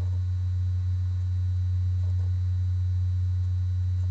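Steady low electrical hum, one unchanging low tone, on the recording.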